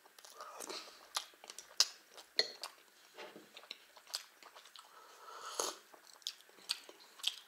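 Close-up chewing and wet mouth sounds of eating thin pancakes (blini) with strawberry jam: irregular smacks and clicks. About four to six seconds in he drinks from a mug of warm water, with a sip.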